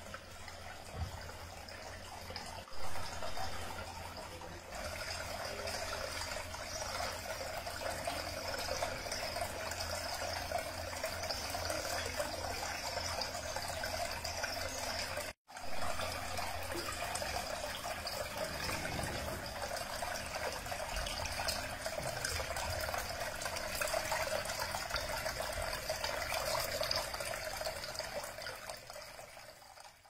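Small cement tiered tabletop fountain running: several thin streams falling from spouts into stone bowls and a pebble basin, trickling and splashing steadily. There is one short louder knock about three seconds in, and the sound breaks off for an instant about halfway.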